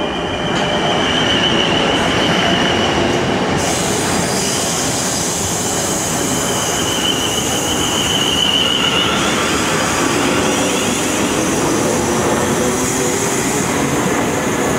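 Two coupled Siemens Class 450 Desiro electric multiple units running along the platform close by, a steady rolling rumble with strong high hiss. A high-pitched squeal comes and goes, about a second in and again from about five to nine seconds in.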